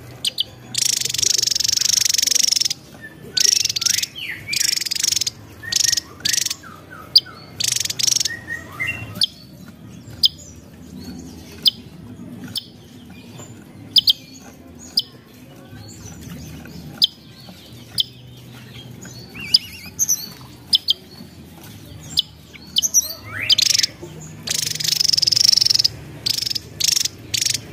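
Javan tesia singing: high, buzzy phrases lasting up to about two seconds near the start and again near the end, with short sharp high chirps between them.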